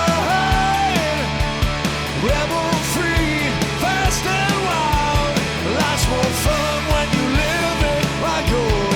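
Instrumental passage of a rock song: a lead line with bending, sliding notes over a steady drum beat and bass.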